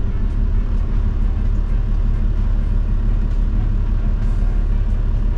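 Toyota Land Cruiser 70's diesel engine running in slow stop-start traffic, heard from inside the cabin as a steady low rumble.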